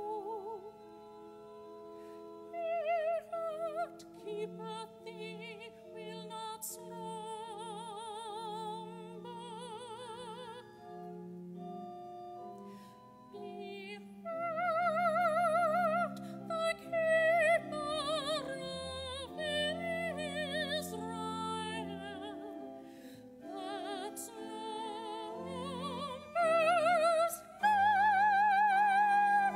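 A solo singer with a wide vibrato sings a hymn over held keyboard chords: the offertory hymn of a Catholic Mass.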